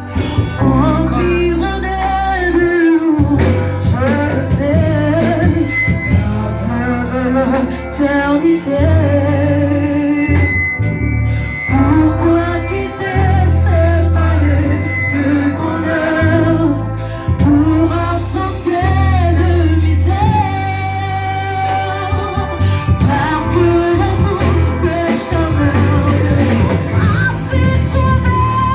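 Live church worship music: singing over a band with a strong, steady bass line, with no break.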